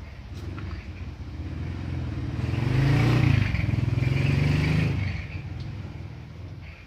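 A motor vehicle's engine passing by: it grows louder, is loudest about three to five seconds in, then fades away.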